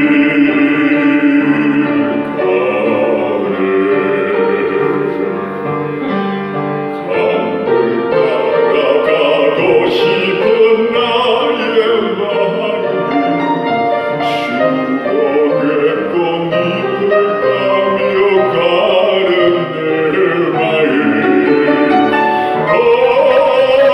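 Piano playing the accompaniment to a Korean song for bass voice, carrying a long stretch where the singer mostly rests. The bass voice comes back in strongly near the end.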